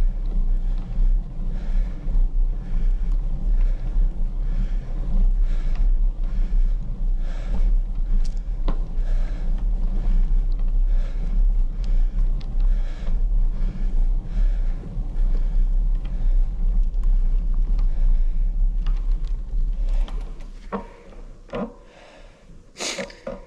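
Wind buffeting the microphone of a handlebar-mounted action camera, its wind reduction switched off, as the bicycle rides: a loud, gusty low rumble. It dies away about twenty seconds in, leaving a few clicks and a brief sharp sound near the end.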